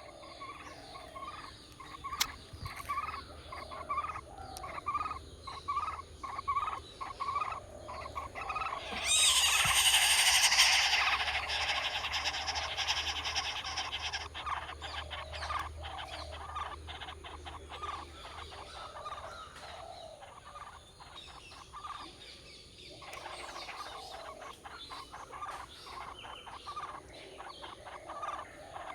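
Baby birds in a nest calling in short repeated chirps, about two a second. About nine seconds in, a loud burst of dense, shrill calling breaks out and tapers off over several seconds.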